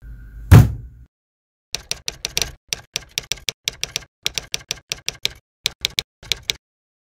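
Typewriter keystroke sound effect: a quick run of sharp clicks, about five a second, in time with text being typed out letter by letter. It opens with a single heavy thud about half a second in, the loudest sound.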